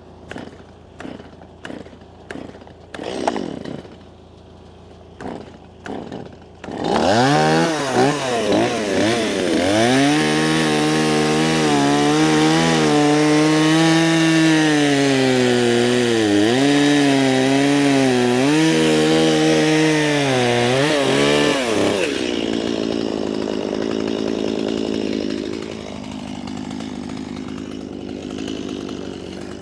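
A few short, separate sounds, then a two-stroke chainsaw starts and runs at high speed, its pitch sagging and recovering again and again as it cuts into a cedar log. About three-quarters of the way through it drops back to a quieter, lower running.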